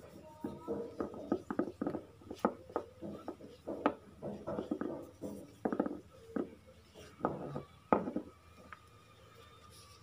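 Irregular metallic clinks and knocks of tools and parts being handled while working on a car AC compressor, stopping about eight seconds in.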